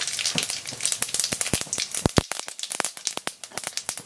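Mustard seeds spluttering in hot coconut oil in a kadai: a sizzle with many sharp, irregular pops as the seeds crackle, the tempering stage of the cooking.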